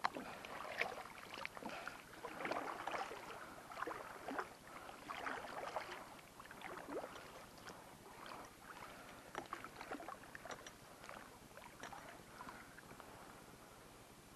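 Water splashing lightly beside a kayak: a series of short, irregular splashes, thinning out toward the end.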